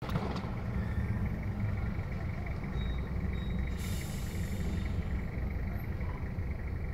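Low, steady rumble of a car heard from inside its cabin, with a brief hiss about four seconds in.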